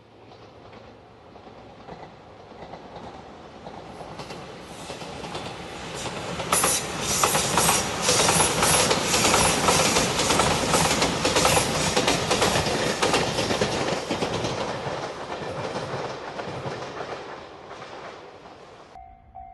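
Limited express electric train passing at speed, its wheels clattering rapidly over rail joints: it builds up, is loudest in the middle and fades away. Near the end it cuts off suddenly and a level-crossing bell starts ringing.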